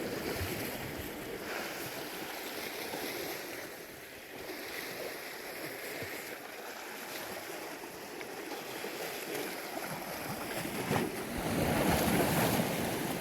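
Sea surf washing against a rocky shore, a steady rush of water that swells louder for a couple of seconds near the end.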